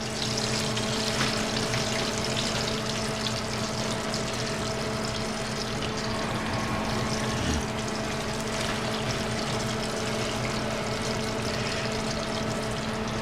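Whole fish frying in hot oil, a steady sizzle and crackle, with a steady low hum beneath it.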